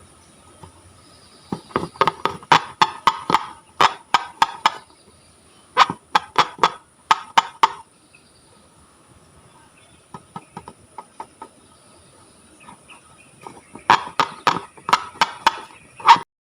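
Slime being squeezed and poked, making runs of quick wet clicks and pops in several bursts, with a fainter run in the middle.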